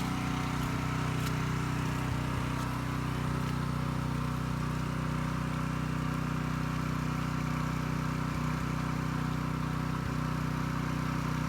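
A small engine idling steadily, with an even hum that does not change.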